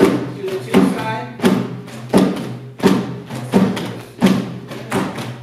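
Live jazz band playing, with a drum kit hitting a strong beat about every three-quarters of a second over bass and pitched instrument notes.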